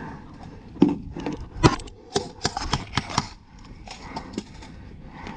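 A run of irregular knocks and clicks, about a dozen in a few seconds, with the sharpest about a second and a half in.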